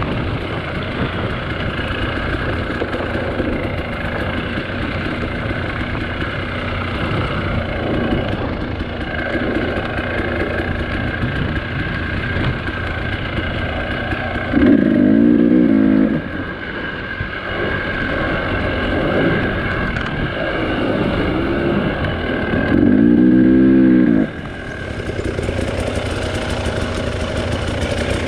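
Dirt bike engine running under way on a trail, revved up loudly twice, about halfway through and again near the end, then settling to a lower, steadier run.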